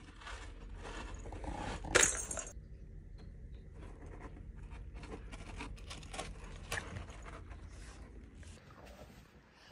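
Kittens scratching and digging in pellet cat litter: a run of short scrapes and rattling pellets, with one sharper clack about two seconds in.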